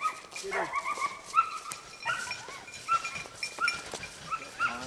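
English setter whining and yipping, a run of short, high-pitched whines, some rising and falling, one after another.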